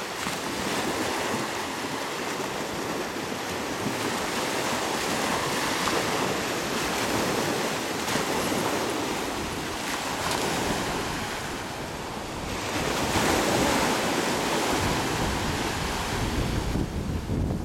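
Small surf breaking and washing up on a sandy beach, with wind buffeting the microphone. The wash swells louder about two-thirds of the way through.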